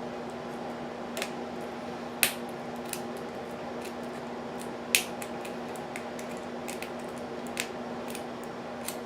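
Lock pick clicking and ticking against the pin stack of a Regal Security six-pin padlock under tension, in small irregular metal clicks, the sharpest about two and five seconds in.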